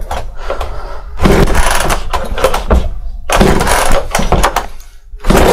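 Three pulls on the recoil starter cord of a small 25.4 cc Chinese two-stroke chainsaw, on full choke for a cold first start; the engine catches on the third pull near the end.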